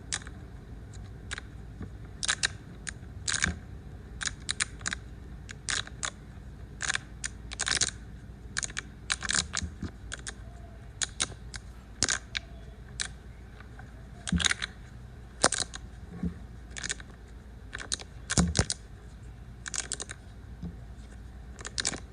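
Small plastic fidget toy being worked by hand: an irregular string of sharp clicks and snaps, sometimes singly and sometimes in quick clusters of two or three.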